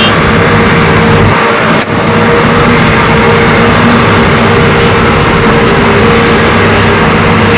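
Heavy diesel engines of Hitachi hydraulic excavators running steadily and loudly as they dig and load dump trucks. The sound drops out briefly about two seconds in.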